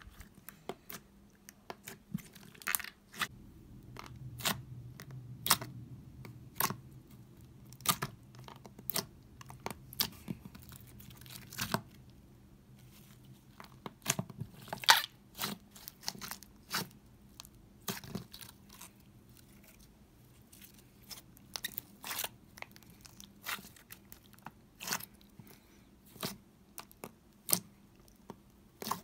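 Hands squeezing and kneading glitter slime: an irregular run of sharp, sticky clicks and pops, a few a second, as the slime is pressed and pulled apart.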